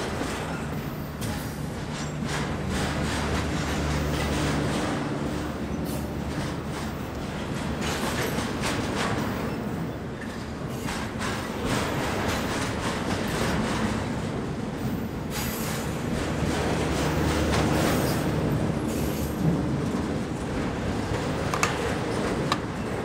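Double-stack intermodal well cars of a BNSF freight train rolling past close by: a steady rumble of steel wheels on rail, with frequent clicks and knocks.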